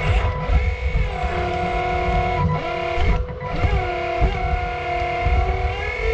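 Hydraulic pump of a 1/8 scale RC excavator whining as the machine works, its pitch sagging and recovering several times as the hydraulics take load, over a low rumble.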